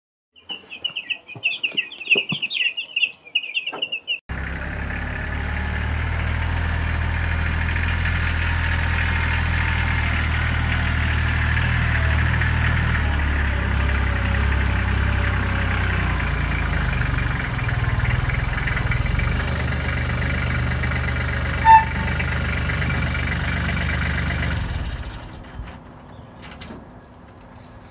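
Birds calling for the first few seconds, then a compact farm tractor's engine running steadily as the tractor drives up with cinder blocks in its front loader. A single short, loud ping comes near the end, and the engine sound falls away soon after.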